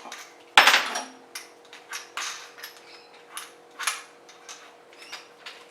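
Metal tools clinking and clattering as they are handled. There is one louder clank about half a second in, then a scattering of lighter clicks and taps.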